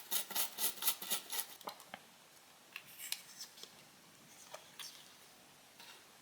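Rapid cleaning strokes on a smartphone part, about four a second, stopping about two seconds in, followed by a few scattered light ticks and taps of small tools and parts.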